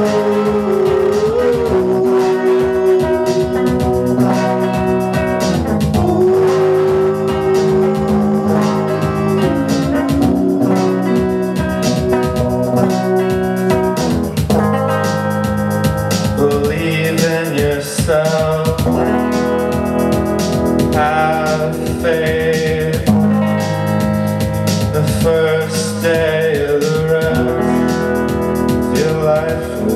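Live band music: electric guitar and keyboard with singing.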